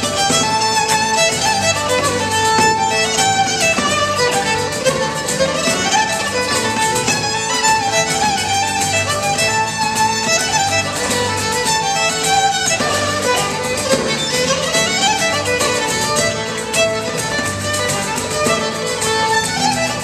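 Fiddle playing a lively Celtic tune over band accompaniment with a steady low beat.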